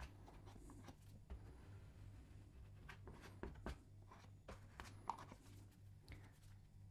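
Near silence with faint, scattered scrapes and taps of a filling knife working wet filler level over a plasterboard patch, over a low steady hum.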